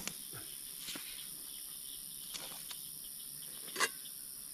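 Steady high-pitched trilling of an evening insect chorus, with a few short knocks and clinks of metal cookware being handled at the fire; the loudest knock comes near the end.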